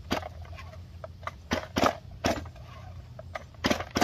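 Recoil starter rope of a STIHL MS 251 chainsaw being pulled several times in short rasping strokes on full choke. The engine does not catch and run.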